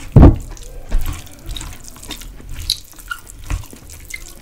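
Wet squishing and small clicks of fingers mixing rice with duck curry on a steel plate, heard close to the microphone, with a loud low thump just after the start.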